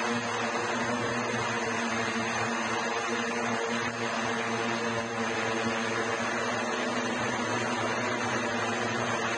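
SkyDrive SD-03 flying car's electric propellers, mounted in contra-rotating pairs, running in a steady hover: an even droning hum with several held tones over a broad rush of air.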